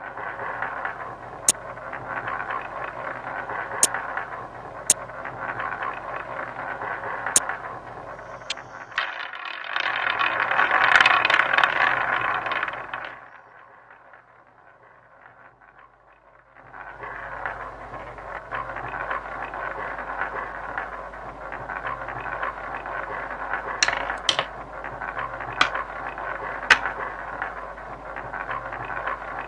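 Online roulette game sound effects: a steady whirring noise with sharp clicks scattered through it, louder for a few seconds before the middle, then fading out briefly before it resumes.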